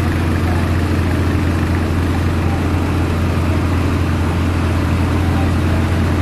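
Fire truck's diesel engine running steadily at idle: an unbroken low drone.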